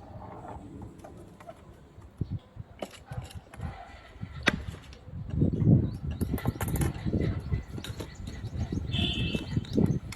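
Birds moving about: irregular fluttering and knocking, with a short high call near the end.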